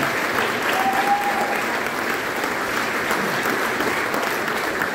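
A church congregation applauding steadily, many hands clapping together.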